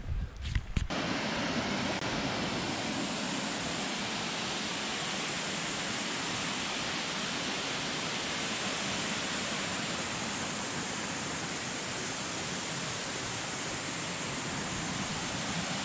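A few low thumps, then about a second in a steady, even rush of falling water from a waterfall cuts in and holds unchanged.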